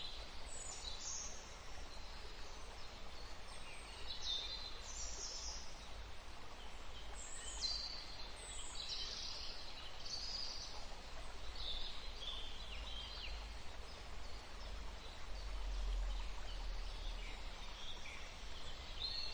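Forest ambience: songbirds giving short, high chirps and falling calls, scattered and overlapping, over a steady low rumble that swells about fifteen seconds in.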